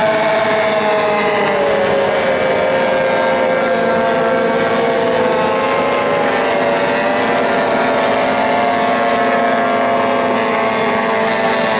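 Outboard racing hydroplanes' motors running at racing speed, a steady high engine whine. Its pitch drops about two seconds in and climbs a little again partway through as the boats pass and run down the course.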